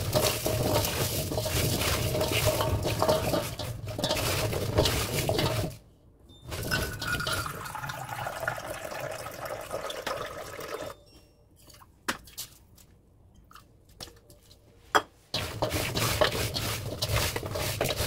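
Hands tossing cubed Korean radish with salt in a stainless steel bowl: the wet pieces clatter and slide against each other and the metal, salting the radish for kkakdugi. The mixing runs near the start and again near the end, with quieter handling and a few soft clicks between.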